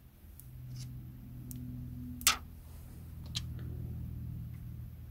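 Sparse small clicks and crackles of a thin plastic anti-static film being peeled and pressed onto the inside of a windshield, with one sharp click about two seconds in, over a steady low hum.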